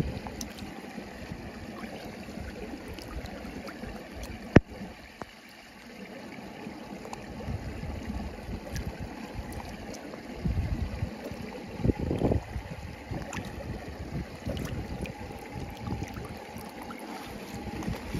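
A shallow brook running over stones, with gurgling as a soft plastic flask is held under the water and fills. An uneven low rumble of wind on the microphone runs underneath, and there is one sharp click about four and a half seconds in.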